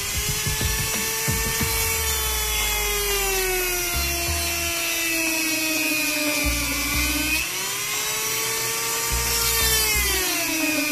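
Ingco mini grinder (rotary tool) running, its flexible-shaft bit cutting into a wooden block. It makes a high, steady whine that sags in pitch twice as the bit is pressed into the wood and picks back up in between.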